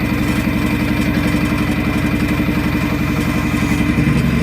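Woodturning lathe running at low speed with a pine bowl blank spinning on it: a steady motor hum with a fast, even throb.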